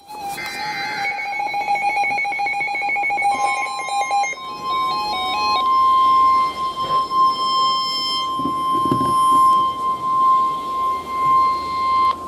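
Weather radios sounding stepped, pulsing electronic alert beeps, then the NOAA Weather Radio warning alarm: one steady high 1050 Hz tone held for about nine seconds. The tone announces an incoming warning broadcast, here a severe thunderstorm warning.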